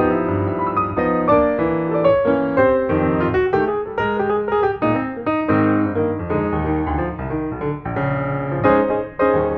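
Background piano music, with notes and chords struck at a steady, moderate pace.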